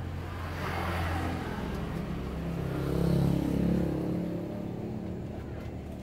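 A motor vehicle's engine passing close by, growing louder to a peak about three seconds in and then fading away.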